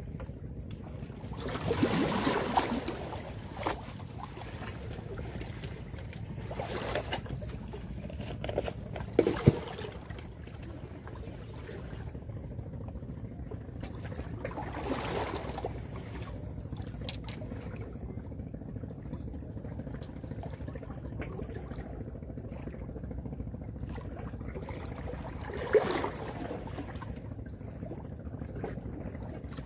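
Sea water sloshing and splashing among concrete breakwater blocks over a steady low rumble of wind and sea, with swells of splash about two seconds and fifteen seconds in. A few sharp knocks and clicks cut in, the loudest about nine seconds in and another near the end.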